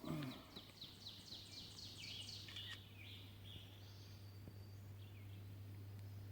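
A songbird singing: a quick series of about ten high down-slurred notes over two seconds or so, then a few softer notes. A faint steady low hum runs underneath.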